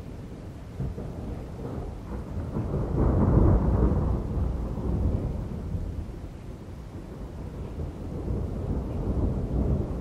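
Thunder rumbling in a thunderstorm. It swells to its loudest about three seconds in, dies away over the next few seconds, and another rumble builds near the end, with rain falling underneath.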